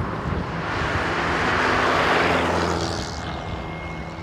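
A vehicle passing close by on the highway: engine hum and tyre rush swell to a peak about two seconds in, then fall away sharply about three seconds in.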